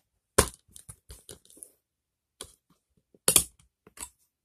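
Plastic DVD case being opened and the disc handled: a series of sharp plastic clicks and cracks with short gaps between them. The loudest comes about half a second in, and another loud cluster follows about three seconds later.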